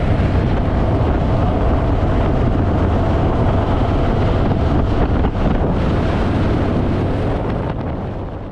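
Harley-Davidson Fat Boy's V-twin engine running at road speed, with heavy wind rush over the microphone. The sound fades out near the end.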